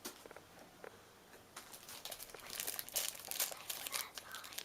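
Plastic wrapping of a small toy-accessory packet crinkling and tearing as it is handled and opened by hand, starting about a second and a half in and getting busier toward the end.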